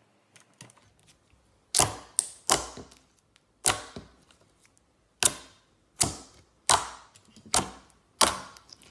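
Glossy metallic slime pressed and poked by hand, giving a series of about nine sharp pops and clicks, each fading quickly. Faint small clicks come before the louder pops begin.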